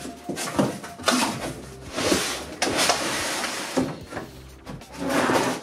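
Cardboard box being opened and handled, its flaps scraping and rustling, with several knocks as a steel material clamp is slid out onto a wooden table.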